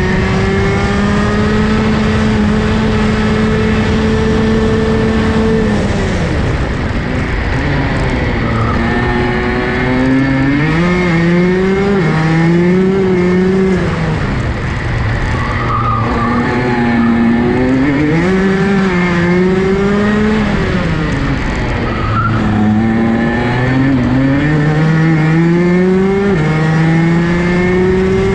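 Rotax DD2 racing kart's 125cc two-stroke single-cylinder engine at racing speed, heard onboard. The engine pitch holds high on a straight, drops under braking about six seconds in, then rises and falls several times through a run of corners before climbing again near the end.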